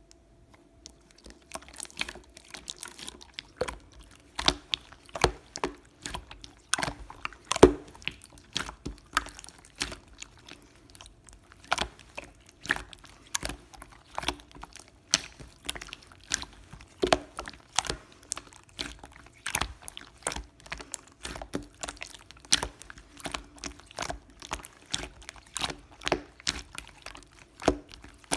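Irregular small clicks and crackles, several a second, of something soft or sticky being worked by hand, over a faint steady hum.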